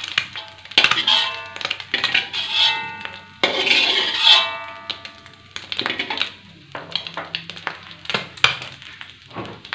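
Metal spatula scraping a metal wok and knocking against its rim and a glass bowl while scrambled egg is scooped out. There are clinks throughout, and ringing after sharp knocks about one second and three and a half seconds in.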